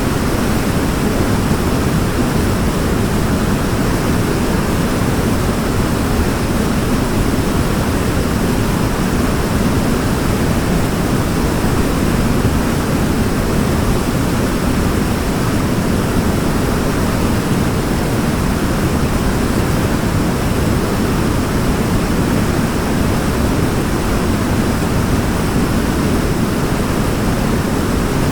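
Waterfall: a steady rush of falling water, deep and even, with no breaks.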